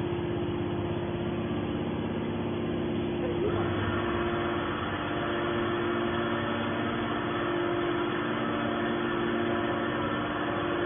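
Hydraulic scrap metal baler's power unit running with a steady hum. About three and a half seconds in, a brighter whir joins it and continues.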